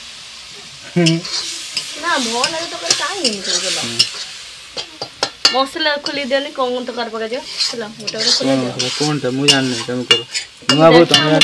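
Food frying in a pan with a sizzle and stirring, with voices talking over it and a few sharp clicks.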